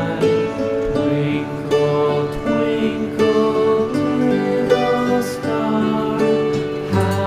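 Background music: a melodic instrumental with plucked guitar-like notes.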